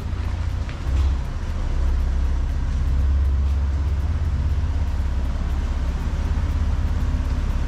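2002 Jeep Wrangler TJ engine idling with a steady low rumble, swelling briefly about a second in.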